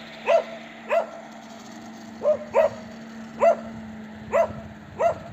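A dog barking: about seven single barks, irregularly spaced. Beneath them is a steady low hum from the level-crossing barrier drives as they raise the booms, which stops near the end.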